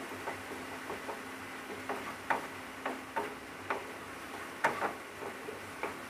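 Wooden spatula stirring frying onions and spice paste in a nonstick kadai: irregular scrapes and knocks against the pan, roughly two a second, over a faint sizzle.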